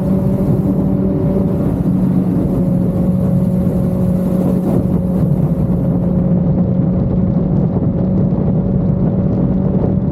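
Motorcycle engine running through an aftermarket Akrapovic exhaust, holding a steady note with no revving up or down.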